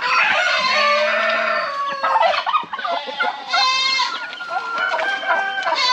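A rooster crowing in one long call, then royal palm turkeys gobbling in quick rattling bursts about three and a half seconds in and again near the end, with chickens clucking in between.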